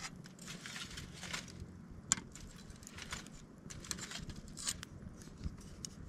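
Wood campfire crackling: irregular sharp pops and snaps over a soft hiss, the loudest pop about two seconds in.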